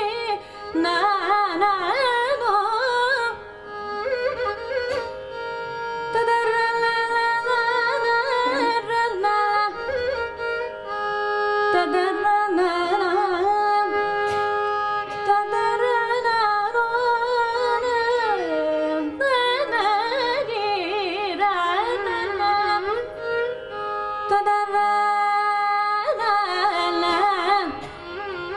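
Female Carnatic classical vocalist singing, her voice sliding and oscillating through ornamented pitch glides (gamakas), over a steady drone. The phrases break off briefly a few seconds in and again near the end.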